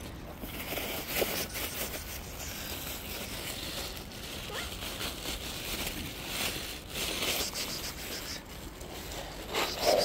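Rustling and crinkling of a bag being handled while a cat noses into it, with a short louder sound just before the end.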